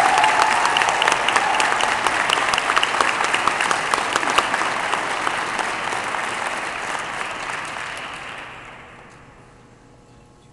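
Audience applauding, a dense patter of many hands clapping that dies away about eight to nine seconds in.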